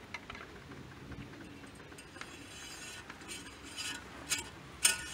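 Faint scattered clicks and light clinking, with a sharper click near the end: a plastic oil funnel and a dipstick being handled in a truck's engine bay.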